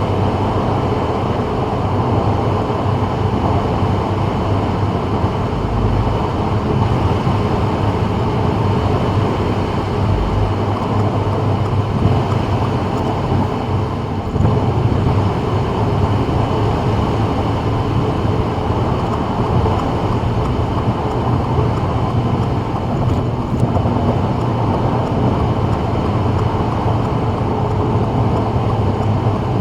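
Steady road and tyre noise of a 2024 Subaru WRX cruising on a wet freeway, with a constant low drone from the car.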